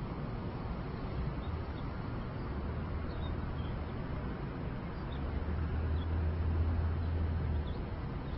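Steady outdoor city background noise on a ledge webcam's microphone: an even hiss with a low rumble that swells twice, briefly about three seconds in and again from about five to seven and a half seconds, with a few faint high chirps.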